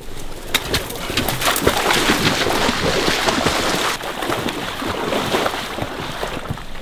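Rustling and snapping of tall grass and willow brush as a person in hunting gear pushes through it with a bulky bag, with many quick sharp crackles over a steady rustle.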